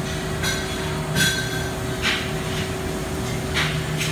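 HEM Saw production band saw running with a steady machine hum. Four short metallic clanks, squeaks and hisses come over it at uneven intervals, steel on steel around the bundle of steel tubing in the vise.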